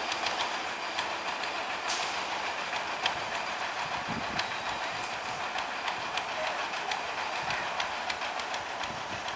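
A passing train's wheels running over the rails: a steady rumbling noise with many quick, sharp clicks from the wheels crossing the rail joints.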